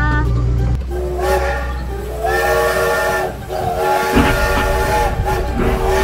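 Whistle of a kiddie road train sounding in about three long blasts, each a held chord of several pitches, over a steady low hum.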